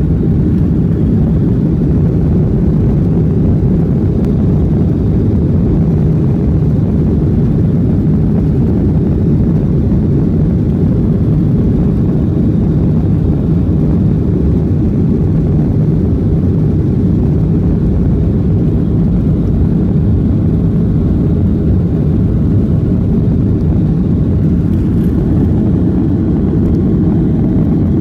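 Inside the cabin of a Boeing 737-800 on the ground during taxi and the start of its takeoff roll: its CFM56-7B jet engines and the rolling airframe make a loud, steady low rumble.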